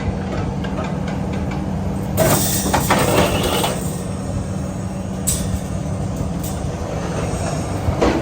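A vehicle engine runs steadily under a low hum. A loud burst of clattering and banging comes about two to three seconds in, with a shorter clank near the middle.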